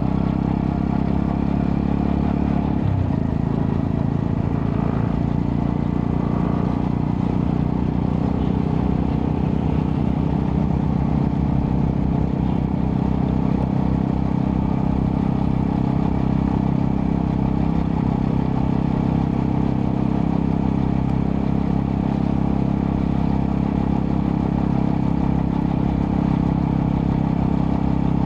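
Honda Astrea Prima 110cc single-cylinder four-stroke engine running steadily through a custom underbelly exhaust with a resonator. The engine note shifts briefly about three seconds in, then holds steady.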